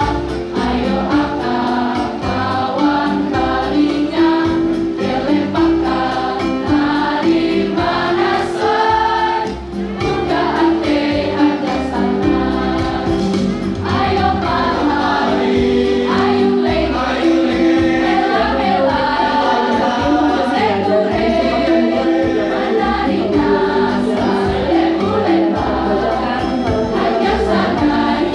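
A school choir singing a song together, accompanied by an electronic keyboard holding chords beneath the voices.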